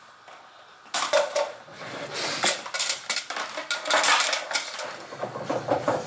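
Clattering and knocking of hard objects being handled and set down on a table, starting about a second in, as a lithium battery pack is fetched and put in place.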